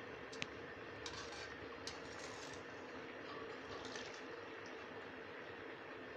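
Wire skimmer scooping boiled rice out of its pot of water and onto the korma in a metal karahi, giving a few light clinks and scrapes against the pans over a steady faint hiss.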